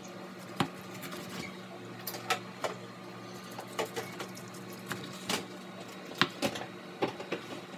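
Chef's knife slicing a grilled beef roast on a plastic cutting board: about ten sharp, irregular knocks as the blade strikes the board through each cut. A steady low hum runs underneath.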